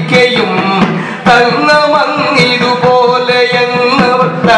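Music: a voice singing a Ramayana song, with sharp percussion strikes about once a second.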